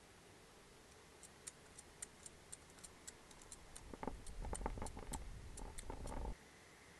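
Eating and handling sounds over a metal salad bowl: faint scattered ticks, then from about four seconds a couple of seconds of louder clicking, crackling and scraping of a utensil and bread against the bowl, cut off abruptly.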